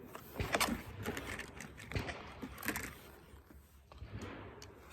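A few light clicks and scrapes of gear being handled, with no gunshots.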